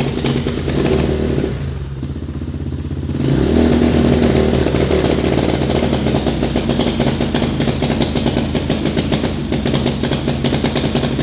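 Engine of a cheap Amazon-bought pit bike running, dipping about two seconds in and then picking back up and holding steady.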